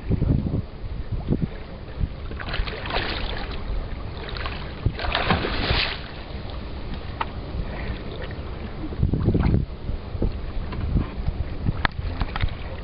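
Small sea waves lapping and splashing, with two louder washes of water a few seconds in, over a low rumble of wind on the microphone.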